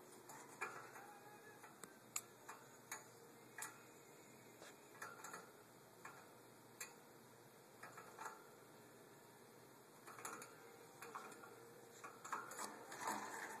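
Faint, scattered clicks and taps at irregular intervals, with a couple of short rustling bursts around ten seconds in and near the end, from a pet canary moving about its cage.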